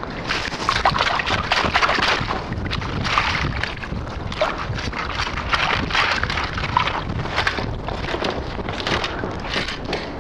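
Perforated stainless-steel sand scoop swished and shaken in shallow water to wash wet sand out through its holes, with irregular sloshing and splashing. Wind buffets the microphone underneath.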